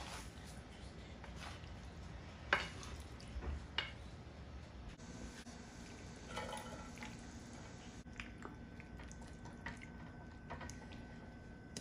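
Kitchen handling sounds: a wooden spoon knocking and scraping in a nonstick pan of cooked penne, then pasta and a thick white sauce being moved into a glass baking dish, with a few sharp knocks (the loudest about two and a half seconds in) and soft wet plops. A faint steady hum comes in about five seconds in.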